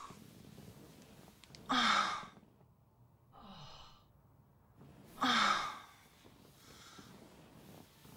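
A woman's breathy sighs of pleasure. There are two loud ones about two and five seconds in, each falling in pitch, with a softer one between them.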